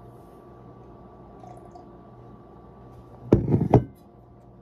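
Two loud knocks about half a second apart, a little over three seconds in: a glass mason jar of water being set down on the table close to the microphone.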